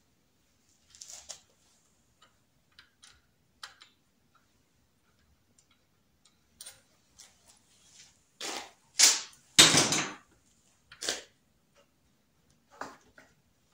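Scattered clicks, taps and rattles of hand work on a 1978 Yamaha SR500's throttle assembly as it is taken apart to disconnect the throttle cable. A louder cluster of knocks and a short scraping rustle comes about two-thirds of the way through.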